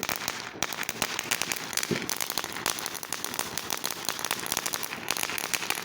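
Consumer firework crackling: a dense, unbroken stream of rapid small pops and crackles.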